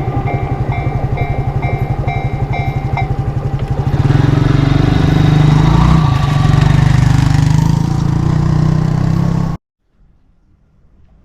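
Level crossing warning bell ringing in a quick repeating rhythm over a passing train's wheels clacking on the rails. The bell stops about three seconds in and the train noise grows louder, then the sound cuts off suddenly near the end.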